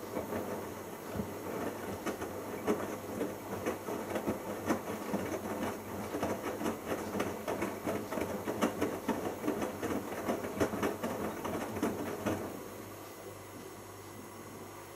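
Bosch Logixx washing machine drum turning in the wash, with laundry and water tumbling and sloshing in an irregular clatter. The drum stops about twelve seconds in, leaving a low steady hum.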